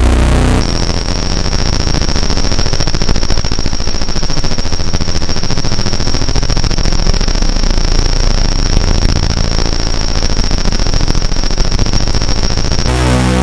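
Harsh, noisy synthesizer texture from a Roland AIRA Compact S-1: a dense crackling grain with one steady high whistling tone over it. The pitched low notes drop out about half a second in and return near the end.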